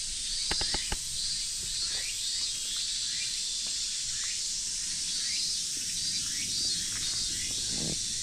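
Summer cicada chorus, a steady high buzz, with short falling chirps repeating about twice a second over it. A few footsteps sound near the start.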